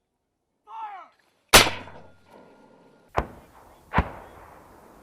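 81 mm mortars firing three rounds in quick succession, about a second and a half, three seconds and four seconds in. Each blast is followed by a long fading rumble, and the first is the loudest. A short shout comes just before the first shot.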